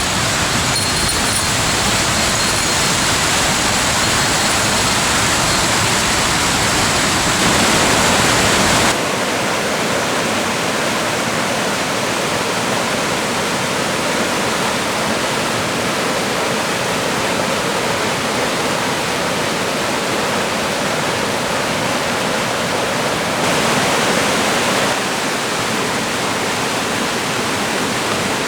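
Rushing water of a waterfall in a mountain gorge, a steady dense hiss. It changes abruptly about nine seconds in, losing its low rumble, and is briefly louder for a second or two near the end.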